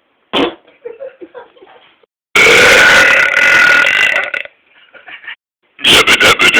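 A person belching: a short burp, then quieter belching, then one long, loud, pitched belch lasting about two seconds. Near the end comes a rapid string of short burps.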